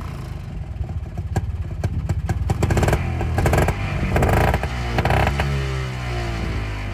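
Bond Mini Car Mark G's Villiers two-stroke engine running very loud, its revs climbing through the middle and falling away about five seconds in, with sharp clicks in the exhaust note.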